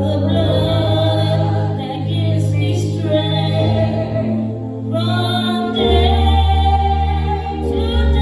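A woman singing a gospel solo over musical accompaniment, with held low bass notes that change a few times under the voice.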